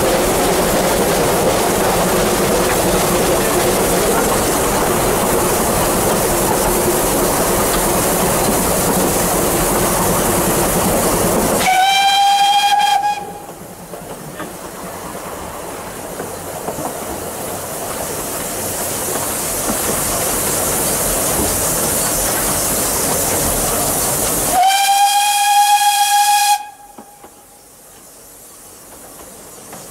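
Vale of Rheidol narrow-gauge steam locomotive on the move, with a loud, steady rushing hiss. It sounds its steam whistle twice: once a little before halfway and once near the end. Each blast swoops up briefly, then holds one steady note for a second or two.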